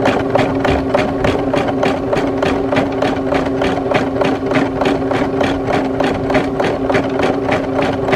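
Embroidery-only sewing machine stitching out a design: a quick, even beat of needle strokes, about five a second, over a steady motor hum.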